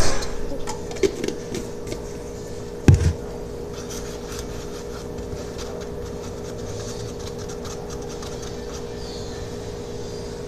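Two sharp knocks about three seconds apart, with a few small clicks and rubbing between them, as the Tide detergent bottle and its cap are handled and set down on the table. A steady hum runs underneath.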